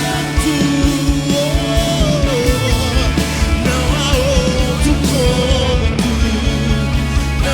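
Live worship band music: drums keeping a steady beat under bass and a wavering melodic lead line.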